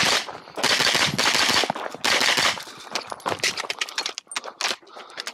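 Pistol-caliber carbine fired in rapid strings of shots: three close bursts over the first two and a half seconds, then sparser, quieter sharp reports.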